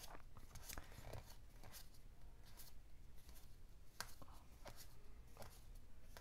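Trading cards being flipped through by hand one at a time: faint, irregular flicks and slides of card against card, about one or two a second.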